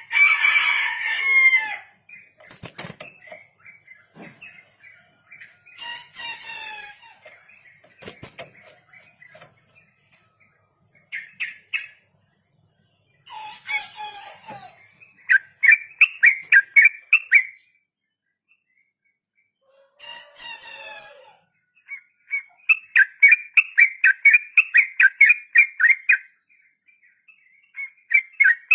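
Yellow-vented bulbul (trucuk) singing in separate phrases: harsher, raspy notes alternating with long rapid runs of repeated chirps, about six notes a second near the same pitch, the rolling 'ropel' song.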